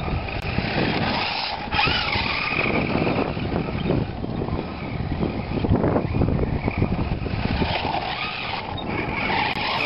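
Radio-controlled toy monster truck's motor whining as it drives across snow, the pitch rising and falling with its speed, over a steady rushing noise.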